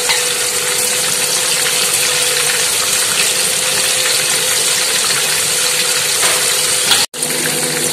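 Crumb-coated prawns deep-frying in hot oil in a pan: a loud, steady sizzle with fine crackling. The sizzle drops out for an instant about seven seconds in.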